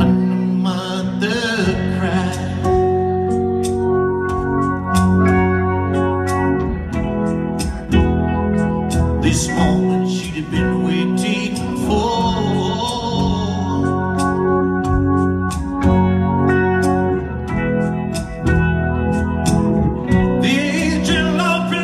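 Live acoustic rock song: a man singing over a strummed acoustic guitar, with sustained chords ringing underneath.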